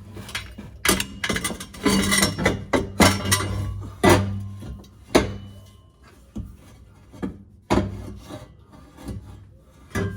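Background guitar music over a run of scraping and knocking sounds of hand work, busiest in the first half.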